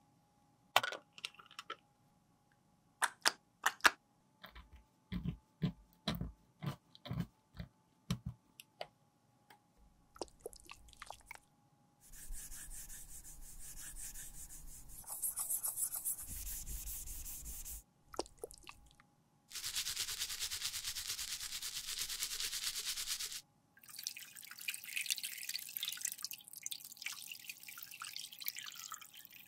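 Clicks and taps as a metal powder compact is opened and handled, then a brush scrubbing the compact's pan in soapy water, and water splashing over it as it is rinsed near the end.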